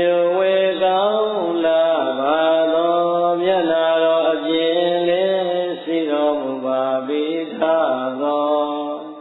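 A man chanting Buddhist verses in Pali in a slow, drawn-out melodic tone, holding long notes. He breaks off briefly about seven and a half seconds in, resumes, and the phrase trails off near the end.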